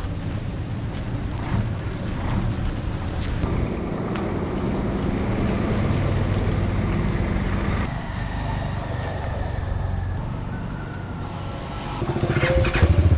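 Motor vehicle engines running in street traffic, with a louder engine coming close near the end.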